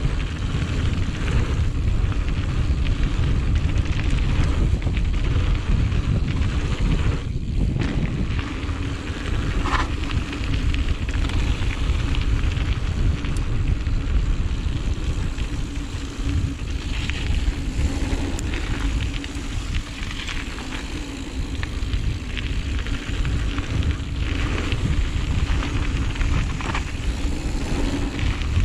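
Giant Reign mountain bike riding fast down a dirt flow trail: wind buffeting the camera microphone over the crackle of tyres on the trail surface and the rattle of the bike.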